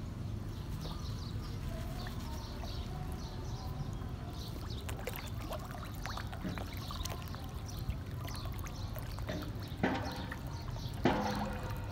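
Water splashing and sloshing as a packed crowd of feeding fish thrash at the surface, with a few louder splashes near the end. A steady low rumble runs underneath.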